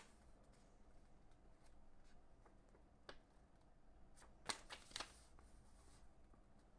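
Faint handling sounds of a porcelain mug and its packaging: a light tap about three seconds in, then three quick taps and rustles around four and a half to five seconds, over near silence.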